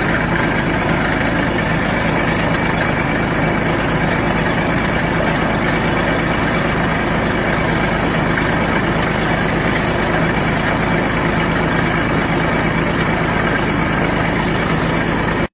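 Small 15-horsepower Kubota tractor running at a steady, unchanging speed.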